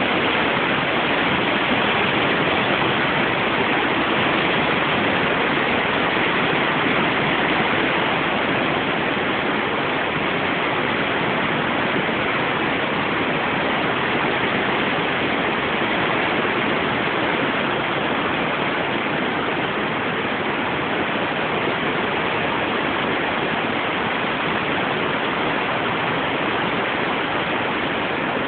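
Fast-flowing floodwater of a swollen river rushing under a bridge: a loud, steady, even rush of water noise.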